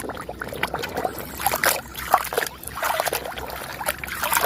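Water splashing and trickling in quick, irregular spurts as a muddy toy vehicle is washed clean.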